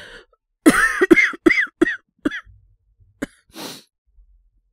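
A man's acted coughing fit from a voice actor: a quick run of about six hoarse, throaty coughs, then a short breath a little later.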